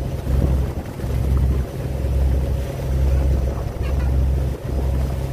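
Ro-ro ferry's engine running steadily, under uneven low rumbling of wind buffeting the microphone on the open deck.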